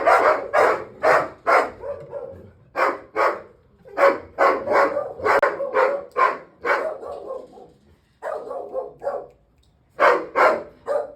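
A dog barking over and over in quick runs of about two to three barks a second, with a few short pauses between runs.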